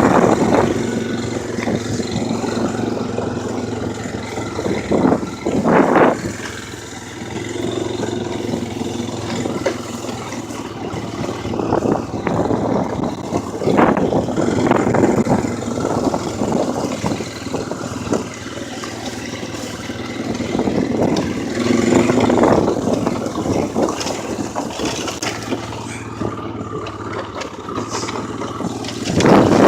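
ATV engine running steadily while riding, with the throttle opened up in louder rough surges every several seconds.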